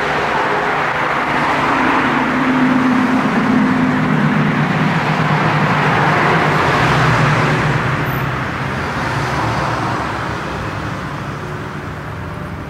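A car passing close by on the street: tyre and engine noise swell over a few seconds, the engine note drops in pitch as it goes by, then fades away.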